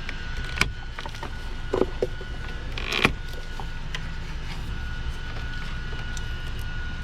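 Plastic retaining clips in a car's engine bay being unclipped by hand: several short clicks and rattles in the first three seconds, the loudest about three seconds in, over a steady low rumble.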